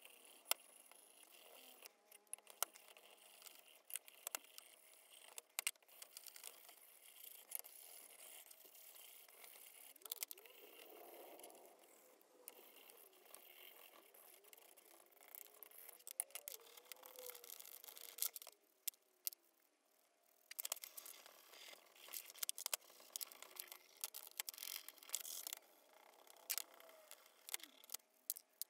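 Faint handling sounds: scattered light clicks and knocks as the metal parts of an antique Stanley Bailey bench plane are moved about in a plastic tray while rust-remover gel is brushed onto them.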